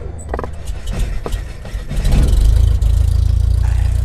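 A loud, low engine rumble that swells about two seconds in, with several sharp knocks before it.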